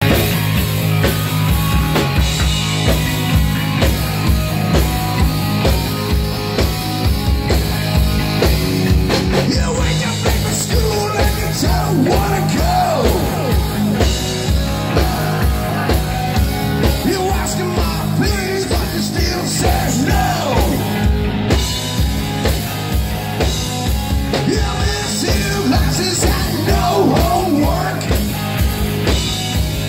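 Live rock band playing loudly: a steady drum beat with electric guitar and bass guitar, and a male singer's voice coming in about ten seconds in.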